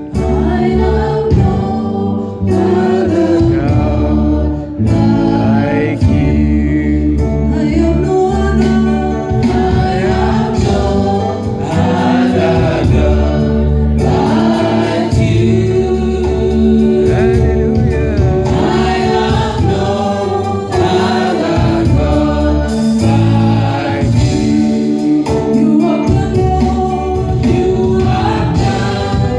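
Gospel music: a choir singing over instrumental accompaniment with strong, steady low notes.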